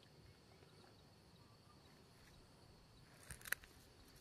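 Near silence: a faint, steady high-pitched insect drone, with a few light clicks about three and a half seconds in.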